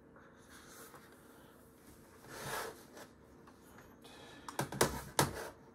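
Handling noise on a desk: a brief sliding rustle about halfway through, then a quick cluster of sharp knocks and clicks near the end as a tablet monitor and its cardboard box are moved about.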